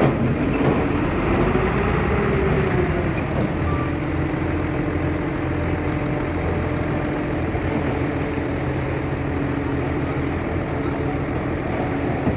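Heavy earthmoving machine's diesel engine running. It revs up and back down in the first few seconds, then settles into a steady drone.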